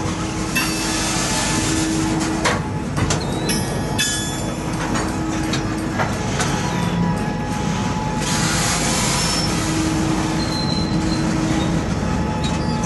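Freight cars rolling slowly during a switching shove: a steady low rumble of wheels on rail, broken by scattered clanks and knocks, with a few faint, short wheel squeals.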